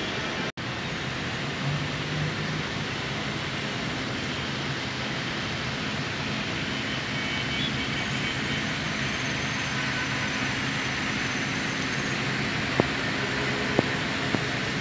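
Steady rushing background noise of a large hall, like air-conditioning or fan noise, with a few faint clicks near the end. It drops out for an instant about half a second in.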